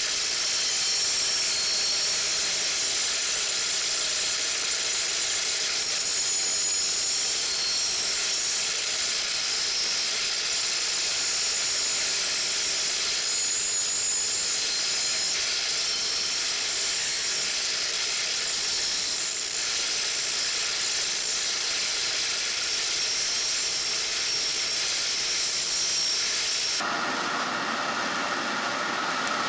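Rebar steel of a forged knife blade being ground on a grinding wheel: a steady, hissing grind with shifting high whistling tones. Near the end it cuts abruptly to a lower, duller steady rushing noise.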